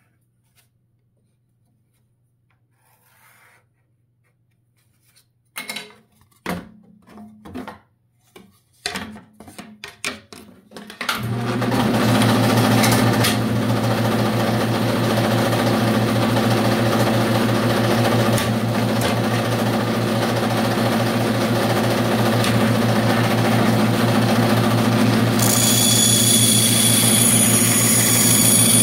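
Faint pencil scratching, then a run of knocks and clatter, then a bandsaw switched on about eleven seconds in, its motor running with a steady hum. A higher steady whine joins near the end.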